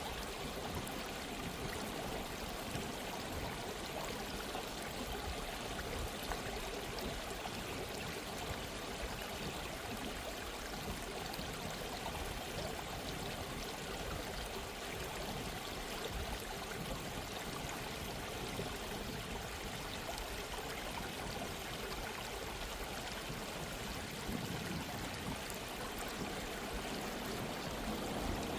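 A gently running stream, water flowing and trickling steadily.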